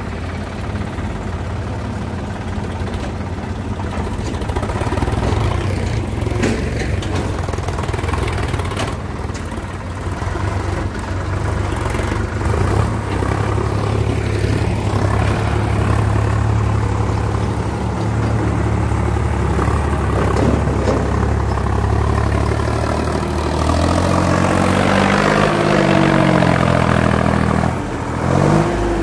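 Sonalika Sikandar DI 50 RX tractor's diesel engine running under load in mud, a steady hum that revs up and down several times near the end.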